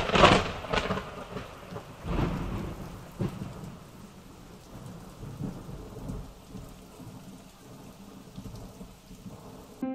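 Thunderstorm sound effect: a loud thunderclap at the start, more rolls of thunder about two and three seconds in, over steady rain that slowly fades.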